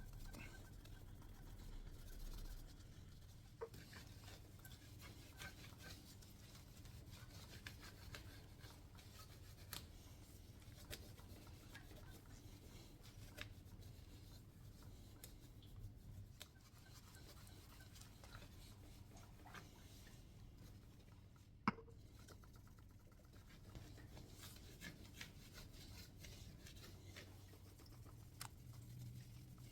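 Faint cloth rubbing and scratching on a motorcycle's R.S.V. expansion chamber being hand-polished with metal polish, with scattered light clicks and one sharper click a little past the middle.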